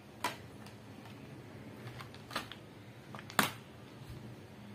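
Small glass nail polish bottles and brushes clicking as they are handled and set down on a glass tabletop: three sharp taps, the loudest about three and a half seconds in.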